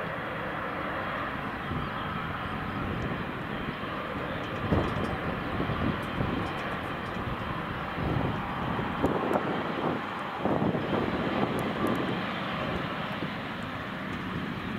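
Boeing 777-300ER's twin GE90-115B jet engines running at taxi power: a steady jet noise with a few brief louder low bumps.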